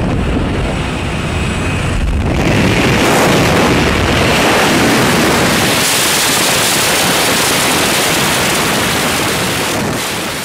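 Loud, steady wind rushing over the microphone, growing brighter and a little louder just over two seconds in.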